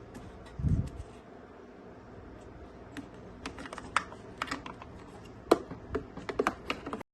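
Small objects being handled: irregular light clicks and taps, coming more often in the second half, with one dull thump about a second in.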